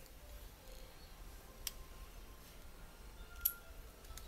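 Two sharp little clicks, the second louder, a little under two seconds apart, from the plastic-and-metal inner frame and parts of a Nikon Coolpix S02 compact camera being handled and worked apart by hand.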